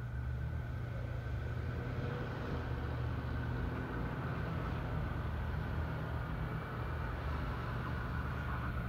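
Metro Gold Line light-rail train approaching from a distance: a steady low rumble and hum with a faint, steady high whine.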